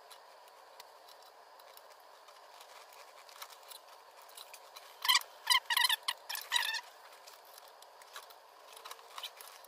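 Wrench turning an AN hose-end fitting held in a bench vise, screwing it down onto the fuel hose: four quick bursts of light metallic clicking a little past halfway, with a few faint ticks near the end.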